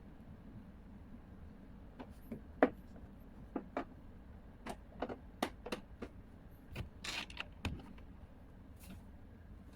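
Irregular light clicks and knocks, about a dozen over several seconds, the sharpest about two and a half seconds in.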